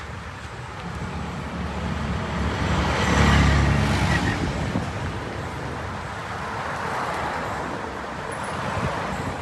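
Road traffic passing close by: motor scooters, then a car going past, loudest about three seconds in, followed by steadier traffic noise as a motorbike approaches.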